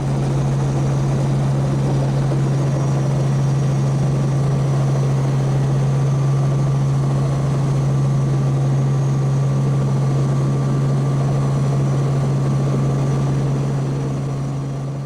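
Helicopter running steadily in flight: a constant low drone under a broad rushing noise, fading out near the end.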